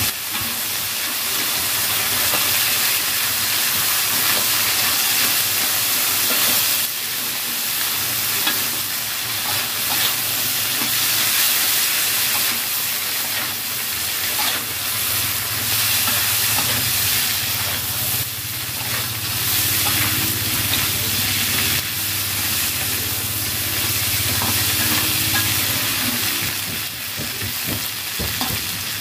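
Winged beans sizzling as they are stir-fried in an aluminium wok, with a metal spatula scraping and knocking against the pan as they are turned. The vegetables are being sautéed until they are cooked.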